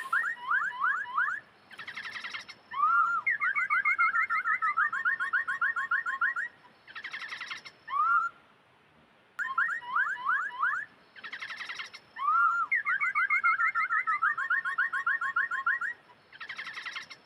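Bird-like chirps and fast trills, the trills about eight quick notes a second. The same run of calls plays through once and then repeats.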